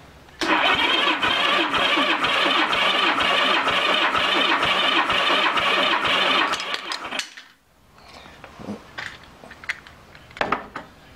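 1981 Honda GL1100 Gold Wing's flat-four engine cranked over by its electric starter for about six seconds without firing, a steady rhythmic churn during a compression test. It stops about six and a half seconds in, followed by a few light clicks.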